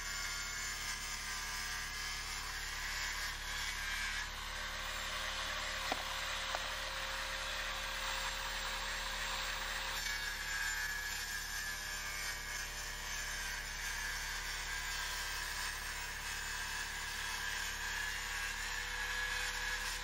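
MK wet tile saw running, its water-cooled diamond blade cutting through ceramic tile: a steady grinding whir with a faint motor whine that sags and recovers a little as the tile is fed. Two short knocks come about six seconds in.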